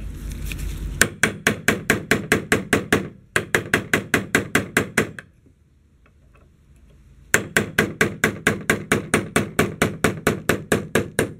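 Hammer tapping a metal pin punch in quick, light, even strikes, about five or six a second, driving the roll pin out of a GM truck distributor's drive gear. The tapping stops for about two seconds around the middle, then resumes.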